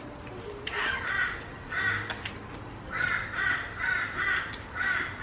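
A crow cawing, a run of about ten short harsh calls starting about a second in.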